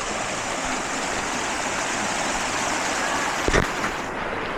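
Small waterfall with water sliding over rocks: a steady rush. A brief thump about three and a half seconds in.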